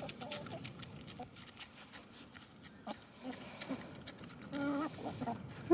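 Chickens pecking at sunflower seeds: a scattering of light, quick taps, with a few short, soft clucks.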